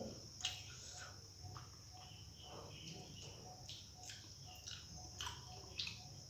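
Faint chewing and wet mouth clicks of someone eating rice and curry, the short smacks scattered through. Under them runs a steady high-pitched chirring of crickets.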